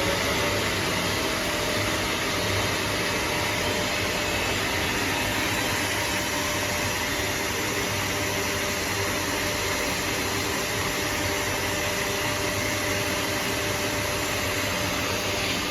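Mica pattern-cutting machine running with a steady whooshing machine noise, like a vacuum, and a faint steady tone above it.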